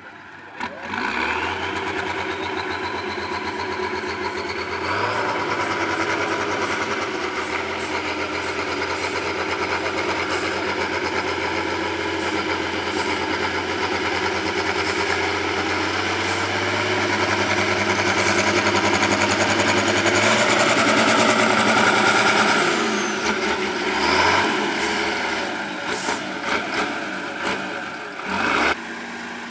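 Heavy diesel engine of a 6x6 trial truck revving up about a second in and then working hard under load at steady revs, loudest about two-thirds of the way through. It then drops back, followed by a few short blips of the throttle near the end.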